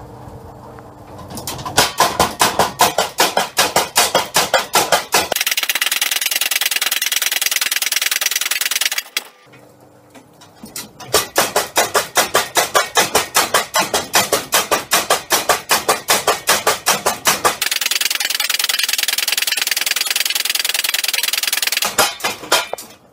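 Homemade electric tire-hammer power hammer pounding a hot steel bar: after a steady motor hum, rapid blows start about a second and a half in and quicken into a continuous clatter, stop briefly around nine seconds, then start again and run until near the end. Super loud.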